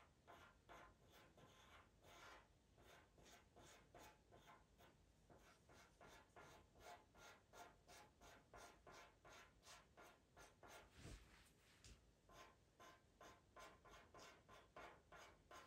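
Pastel pencil scratching faintly on Pastelmat paper in short, quick strokes, about three to four a second, with one soft low thump about two-thirds of the way through.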